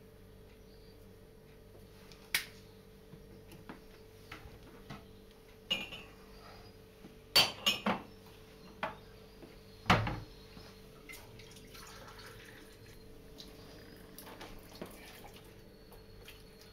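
Kitchen handling noise: scattered clicks and knocks of bottles, shakers and a metal roasting tray being handled on a counter, with a cluster of sharp knocks about seven seconds in and the loudest, a heavier thump, about ten seconds in, over a steady faint hum.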